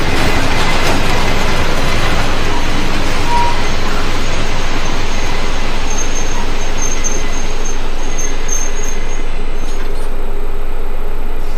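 Pair of SBB Cargo electric locomotives running slowly, a loud steady rushing hum, with a faint high whine in the middle.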